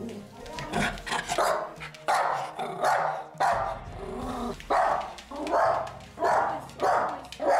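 Yorkshire terrier barking in a rapid series of about a dozen sharp barks, one to two a second: alarm barking at a pumpkin on the floor that the dog is afraid of.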